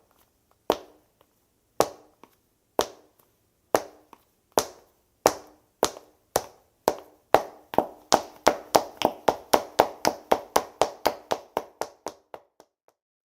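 Footsteps of hard-soled dress shoes: slow walking steps about a second apart that quicken into running steps, about three a second, fading away near the end.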